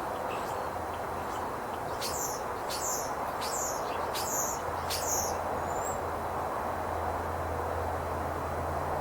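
A small bird gives a run of five sharp chirps, each dropping quickly in pitch, starting about two seconds in, with a fainter one just after. Underneath is a steady background hum.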